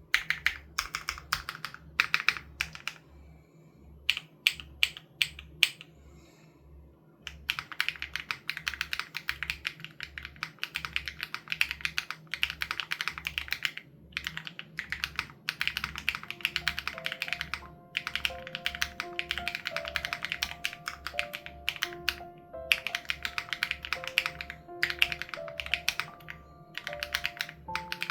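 Typing in runs of fast key clicks on an SPM AL87B mechanical keyboard with BSUN Raw switches and its sound-dampening foam removed, pausing briefly now and then. Background music with a steady beat plays underneath, with a melody coming in about halfway through.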